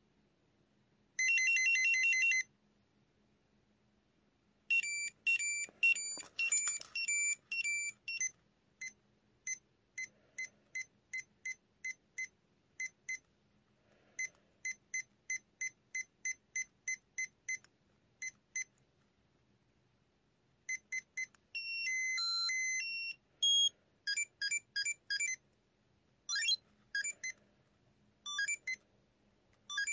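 Tamagotchi virtual pet beeping from its tiny speaker: a short buzzing trill, two little electronic tunes, and runs of evenly spaced short beeps at about two a second, the sounds of its screens and button presses.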